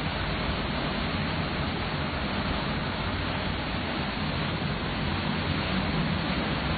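Hurricane wind and driving rain making a steady, unbroken rushing noise with no letup.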